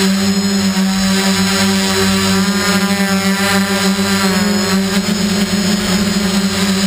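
Quadcopter's electric motors and propellers running in a steady hover, a loud whining hum heard from the camera on board, with the pitch wavering briefly about halfway through as it manoeuvres.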